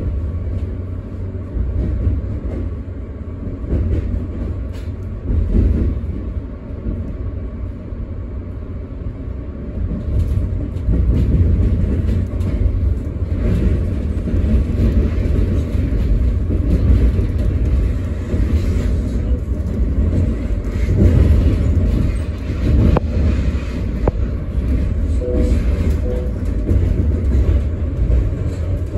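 Metra commuter train running at speed, heard from inside a passenger car: a steady low rumble of wheels on rails, with scattered clicks as the wheels cross rail joints. It grows louder about ten seconds in.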